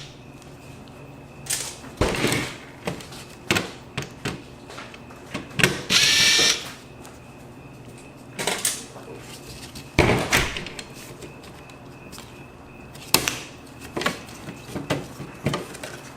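Laptop parts being handled and taken apart: scattered clicks and knocks of plastic and metal pieces, with a short harsh burst about six seconds in and another loud knock about ten seconds in.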